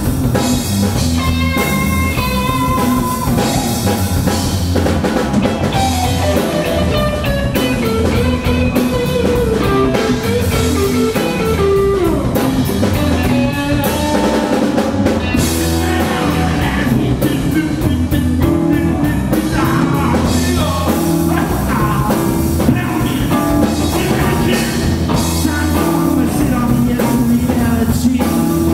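Live rock trio playing: electric guitar, electric bass and drum kit.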